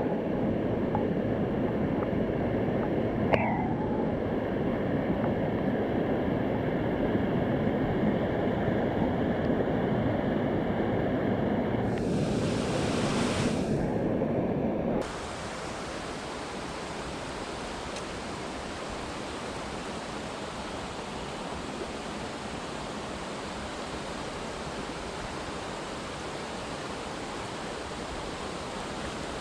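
River water rushing steadily, an even noise without any tone; about halfway through it abruptly drops to a quieter, hissier rush.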